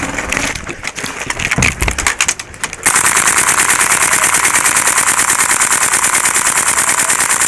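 Airsoft gun firing full-auto: a long, unbroken stream of very rapid shots that starts about three seconds in, after a few scattered clicks and knocks.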